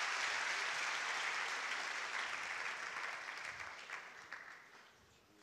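Audience applauding, a steady clatter of many hands that dies away about four to five seconds in.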